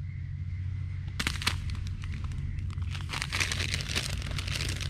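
Plastic food packet crinkling and crackling in the hands as it is handled and opened, starting about a second in and densest about three seconds in. A steady low rumble sits underneath.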